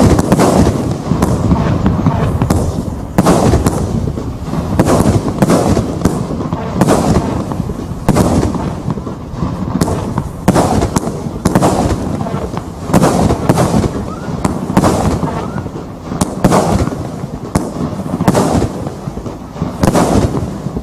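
Rio Grande 80-shot firework barrage cake firing shot after shot in a steady run, each shot a sharp report, with louder bursts every second or two.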